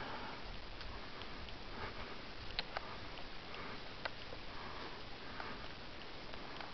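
A person breathing through the nose close to the microphone, with soft sniffs every second or two and a few faint sharp clicks in between.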